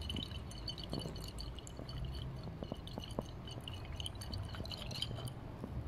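Stoppered glass Erlenmeyer flask being shaken by hand, the liquid sloshing with quick light splashes and ticks that stop about five seconds in. The shaking mixes air into the methylene blue–glucose solution and turns it blue again.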